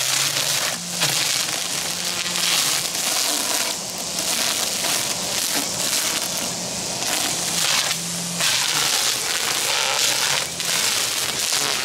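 Battery-powered string trimmer cutting tall, thick grass: a steady electric motor hum under the crackling hiss of the spinning line chopping through stems. The loudness swells and eases as the line bites into the growth.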